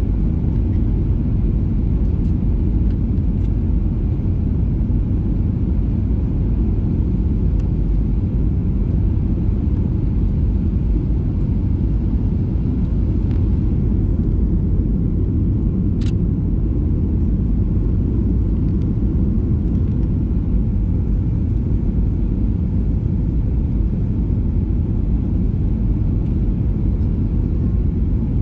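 Steady low rumble of engine and airflow noise inside the cabin of a Boeing 737-800 on approach with its flaps extended, heard from a window seat beside the wing. A faint steady hum runs under it, and there is one faint click about halfway through.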